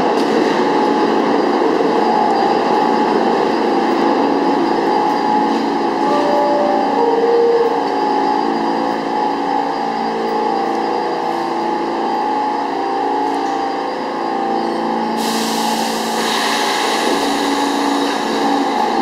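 R46 subway train braking to a stop at the platform and then standing with its equipment humming in several steady tones. About fifteen seconds in, a steady hiss starts.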